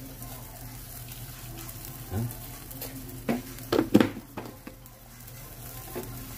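Pot of vegetables boiling on a gas stove, a steady bubbling hiss, with a few metal clanks from the stainless pot and its lid between about two and four seconds in, the loudest near four seconds.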